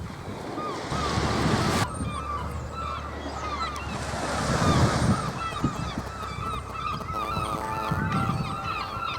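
A large flock of birds calling continuously in short, repeated honking notes, over the wash of waves.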